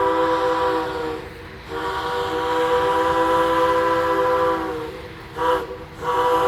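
Locomotive horn sounding a chord of several steady tones. One blast ends just over a second in, then come a long blast, a short blast and another long one starting near the end: the grade-crossing signal pattern.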